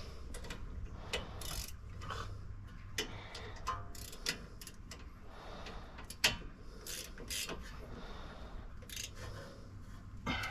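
Hand tools clicking and clinking irregularly against metal while the rear brake caliper is bolted back together.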